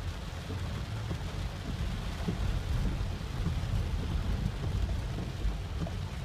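Flash-flood water rushing past: a steady low rumble with a fainter hiss above it.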